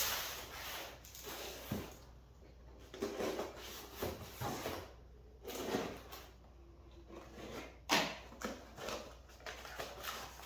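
Rummaging through a cardboard shipping box of engine parts: packing material rustling and scraping in irregular bursts, with one sharp knock about eight seconds in.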